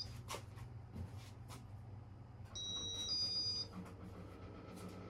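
Casablanca Victorian ceiling fan's piezo beeper sounding a short stepped two-tone beep a little past halfway, as the fan's demo mode cycles. Under it the fan motor hums low and steady, with a few light clicks in the first second and a half.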